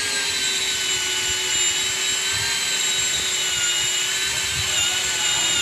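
Electric drill spinning a swaging bit into the end of a refrigerant pipe to expand it, running steadily with a high whine that dips slightly in pitch near the end.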